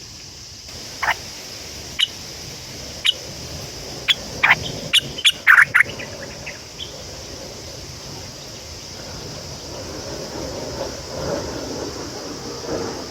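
Bird calls: short, sharp calls about a second apart, then coming faster and louder in a cluster around four to six seconds in, over a steady high hiss. A rushing noise builds near the end.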